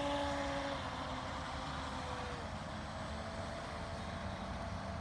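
A motor running with a steady hum; its pitch sags about two seconds in and settles on a new steady note about a second later.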